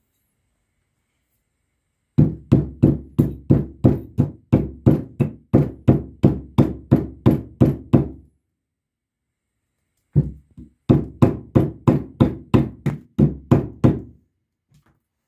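An electric motor's cast end shield and rotor knocked against the workbench over and over, about four sharp knocks a second. There are two runs, a few seconds each, with a pause of about two seconds between them. The knocking works the end shield off the rotor's bearing.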